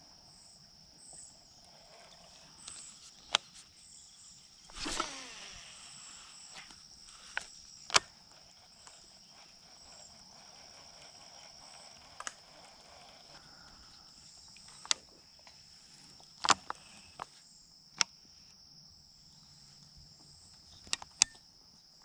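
Insects trilling steadily at a high pitch over the pond. Several sharp clicks and a brief rustle about five seconds in break the trilling.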